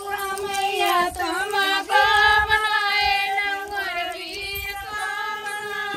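High women's voices singing a slow song with long, drawn-out notes.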